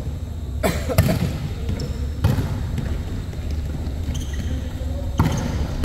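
A volleyball being struck several times in a rally on an indoor court: sharp slaps and thuds a second or more apart, echoing in the large hall, over a low steady hum.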